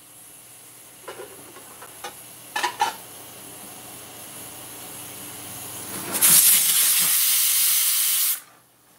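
Stovetop aluminium pressure cooker on a gas burner: a soft steam hiss builds with a few light clicks, then steam blasts out of the weight valve in a loud hiss for about two seconds before cutting off suddenly. This is the cooker's 'whistle', the sign that it has come up to pressure.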